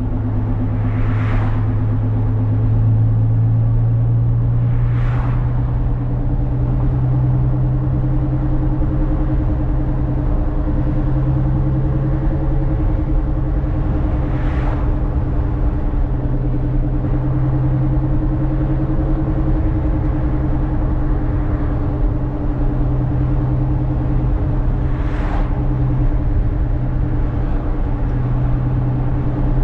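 Ferrari California's 4.3-litre V8 running at a steady cruise, with a low even note that rises and falls slightly in pitch, under tyre and road noise. Four brief whooshes pass over it.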